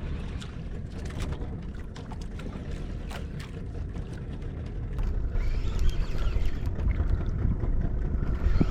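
Wind and water rumble on a small boat at sea, with scattered short ticks, growing louder about five seconds in.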